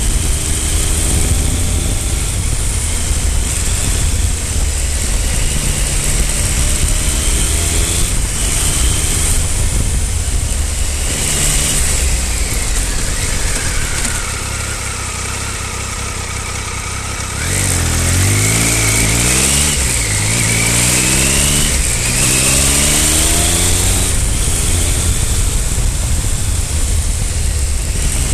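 Triumph Speed Triple 955i's inline three-cylinder engine running on the move, with a steady rush of wind. About halfway through it eases off and goes quieter, then pulls hard through several gears, the pitch climbing and dropping back at each upshift.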